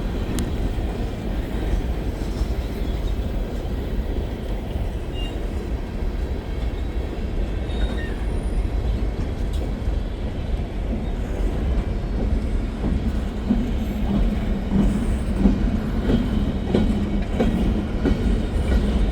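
A long freight train of empty trash cars rolling past close by: a steady rumble of steel wheels on rail with scattered clicks and knocks over the joints. From about two-thirds of the way through, a low steady hum joins in.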